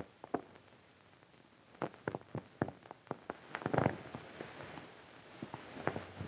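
Revolver being handled: a series of sharp metallic clicks, with a denser rattle about three and a half seconds in, over the hiss of an old film soundtrack.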